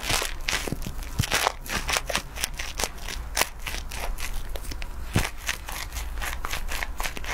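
Fingers scrubbing shampoo lather through wet hair, close up: a dense run of short wet crackles and scratches, several a second, with sharper ones now and then.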